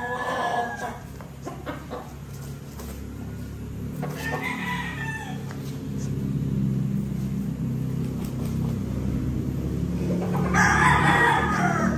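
Gamecocks crowing: three crows, one right at the start, one about four seconds in, and the loudest near the end, each falling in pitch at its close. A steady low hum runs underneath.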